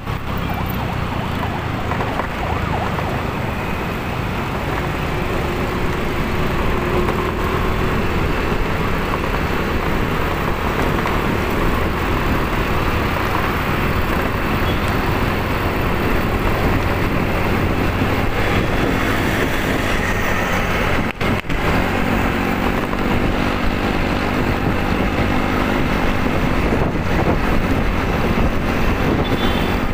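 Motorcycle engine running with steady wind and road noise on the microphone while riding through city traffic; the sound drops out for a split second about two-thirds of the way in.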